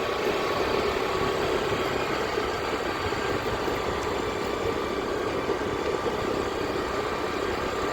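A vehicle's engine running steadily, with an even, unchanging hum.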